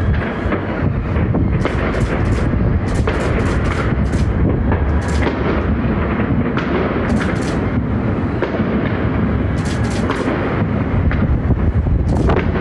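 Fireworks display: many booms and sharp cracks in quick succession, merging into a continuous rumble.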